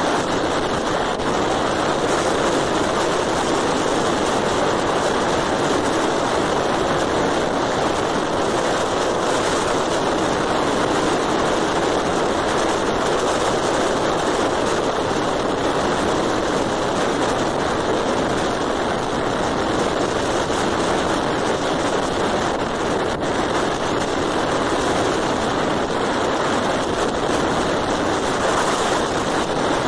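Steady rushing wind and road noise from a vehicle travelling at speed along a city avenue, an even roar with no distinct events.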